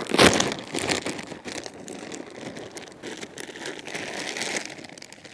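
Plastic bag of frozen tater tots crinkling and rustling as it is handled, loudest in the first half second, then softer scattered crackling.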